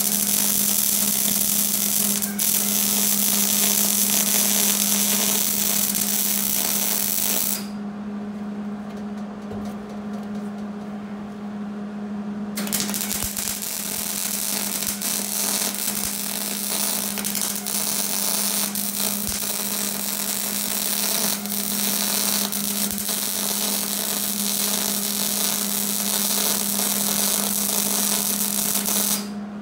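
MIG welder arc crackling as it lays beads on steel square tubing, in two runs: the first stops after about seven and a half seconds, and after a pause of about five seconds a longer run starts and stops just before the end. A steady low hum sits under the welding.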